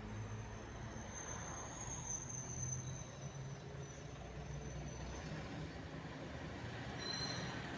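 ATR 72-600's twin turboprop engines running steadily, a low hum under a thin high-pitched whine that fades about five seconds in.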